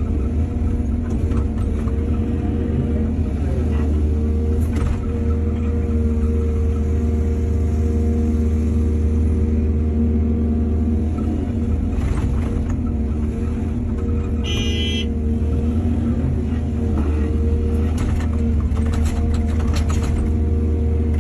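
A heavy diesel engine, most likely an excavator's, running steadily with a deep rumble, with a few short knocks and clanks. A brief high-pitched tone sounds about two-thirds of the way through.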